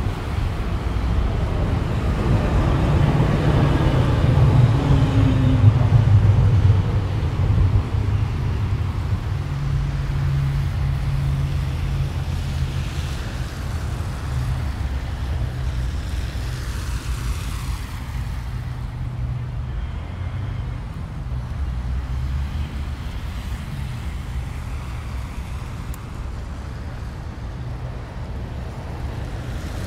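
Road traffic on a wet street: cars passing with a low engine hum and tyre hiss, the loudest vehicle going by about four to seven seconds in, its pitch falling as it passes.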